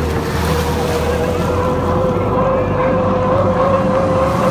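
Turbine engines of H1 Unlimited hydroplanes racing: a steady high whine, creeping slightly up in pitch, over a rushing noise.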